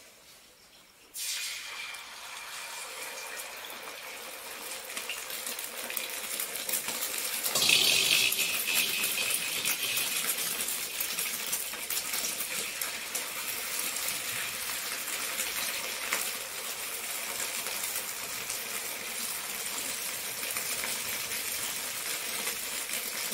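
Egg flatbread (anda poli) sizzling as it fries on a hot pan: a steady hiss that starts suddenly about a second in and grows louder about seven seconds in.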